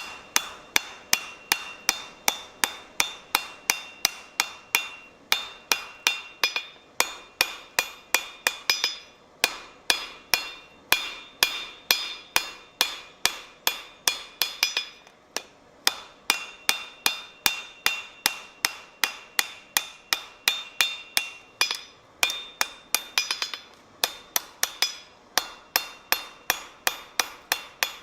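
Blacksmith's hand hammer forging steel on an anvil: a steady run of blows, about two to three a second, with a bright ringing from the anvil and stock after many strikes and a few short breaks between runs.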